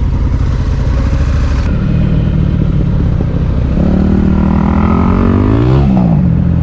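Motorcycle engine running under way, then revving up with a rising pitch about four seconds in, dipping and rising once more before the sound cuts off suddenly at the end.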